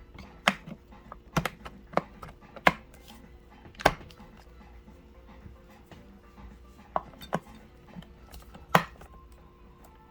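Irregular sharp clicks and knocks, about a dozen, of hard objects being handled and set down, with a faint steady hum underneath.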